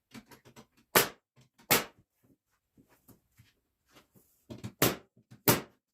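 Four sharp, loud knocks on cedar shutter boards during assembly, in two pairs, with lighter clicks and taps between them.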